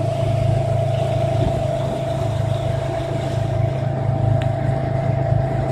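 Boat engine running steadily under way, a constant low drone with a steady higher-pitched whine over it, and the hiss of the churning wake.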